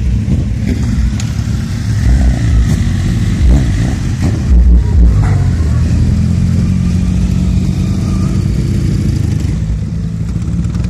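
Engines of cars and motorcycles driving slowly past close by, a steady low rumble with a louder surge about halfway through as a car passes right alongside.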